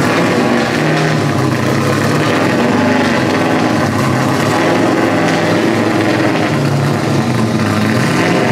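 LS V8 engine in a Nissan 240SX running at low revs while the car creeps forward, its pitch stepping up and down slightly every second or two with small changes of throttle.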